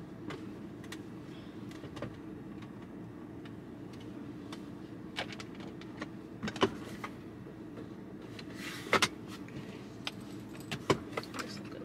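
Scattered clicks, knocks and a short rustle as small items are handled and put away in a car's interior storage compartments, the loudest clatter about three-quarters through. A steady low hum fills the cabin underneath.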